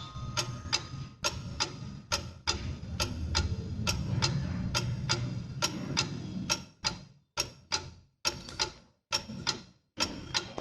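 Pendulum clock ticking steadily, about two to three sharp ticks a second.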